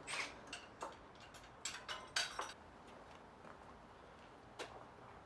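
Faint, scattered metallic clicks and clinks of hand tools and parts being handled on a stripped motorcycle frame: a cluster of short clicks in the first two and a half seconds, a quiet stretch, then one more click near the end.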